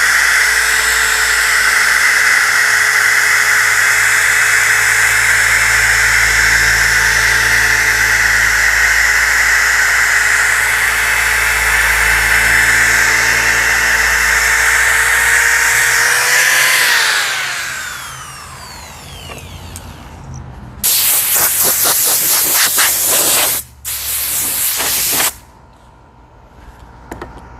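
DeWalt DWE6401DS disc sander running steadily under load, then switched off, its pitch sliding down as it winds down about three-quarters of the way in. Near the end come two loud bursts of hissing, a couple of seconds and about a second long.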